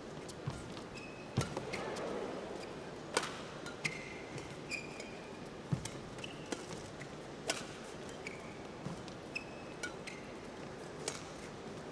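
Badminton rally: sharp racket-on-shuttlecock hits about once a second, with short squeaks of players' shoes on the court mat between them.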